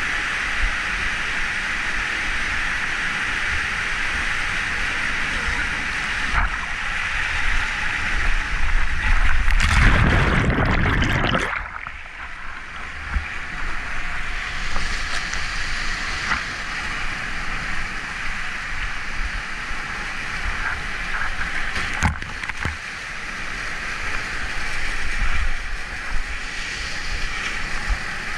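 Steady rushing of water in a canyon creek, with a small waterfall pouring into a pool. About nine seconds in the water noise swells much louder for two or three seconds before settling again, and a couple of sharp knocks come through.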